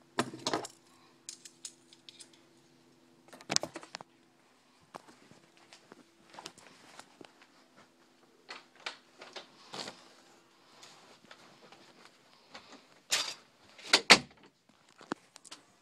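Scattered handling noises: clicks, knocks and light rattles, the loudest a few sharp clacks near the end. A faint steady hum sits underneath and stops about three quarters of the way through.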